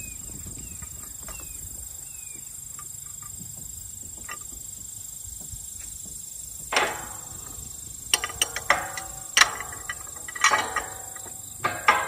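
Steel tube farm gate being closed against a Tarter two-way gate latch as a dry check of the fit: a ringing metal clank about seven seconds in, then a quick series of clicks and clanks with ringing as the gate meets the latch and it catches. Faint short chirps before the clanks.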